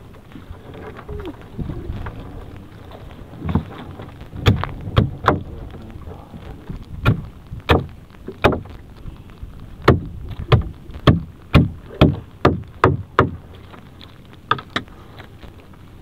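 A gill net being hauled in by hand over the side of a small fishing boat: a run of sharp knocks against the boat over a low rumble of wind and sea. The knocks come irregularly at first, about two a second in the middle stretch, then thin out near the end.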